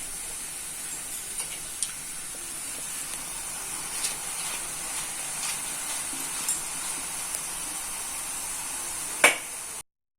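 Omapodi (besan sev) deep-frying in hot oil: a steady sizzle with a few light clicks of a utensil against the pan and one sharper knock near the end. The sound cuts out abruptly for a moment just before the end.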